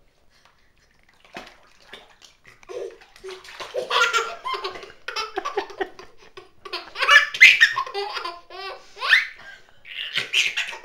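A baby laughing in repeated bursts of belly laughter, starting about a second in.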